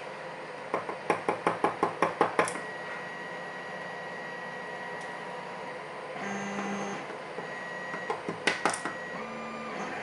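A quick run of about ten light metallic clicks, about five a second, then three more near the end, as small parts of a pin-tumbler lock cylinder are handled and tapped during disassembly.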